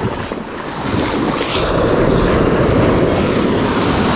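Small waves breaking and washing up the sand at the water's edge, with wind buffeting the microphone. The wash swells about a second in and then holds steady.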